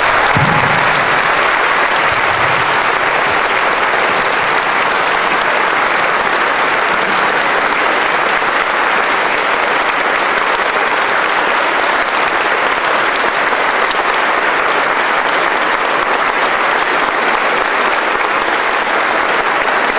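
Audience applauding, a steady, unbroken round of clapping.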